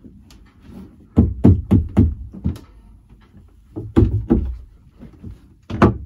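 Heavy thumps and knocks of feet and weight landing on a new white toilet base, as someone climbs onto it and stands on it to test its strength. The thumps come in bursts: a quick run of about five, then two more, then a few near the end.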